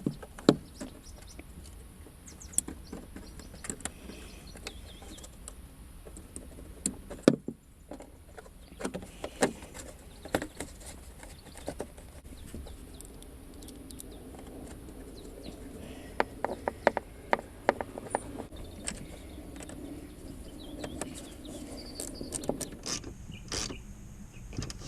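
Irregular plastic clicks, knocks and scraping from hand work on a car's plastic speaker mounting. The mounting is being trimmed so a 6.5-inch speaker will fit in an opening made for a 6-inch one.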